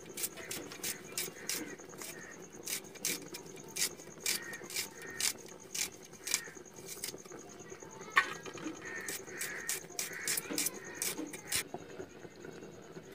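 Knife cutting and peeling dry onion and garlic skins: a run of crisp cuts and snaps, about two or three a second, that stops near the end.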